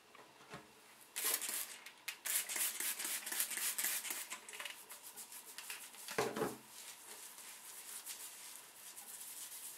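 Hairbrush bristles scraping through curly hair in quick repeated strokes for a few seconds, then fainter rubbing of hands over the hair, with one dull bump about six seconds in.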